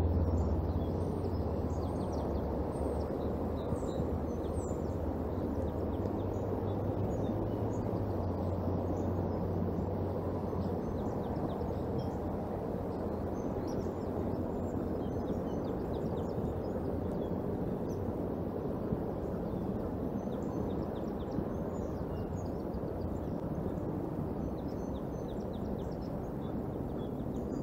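Steady outdoor rain-and-wind noise picked up by the nest camera's microphone, with a low hum that fades out about ten seconds in. Faint, scattered high chirps of small songbirds come through over it.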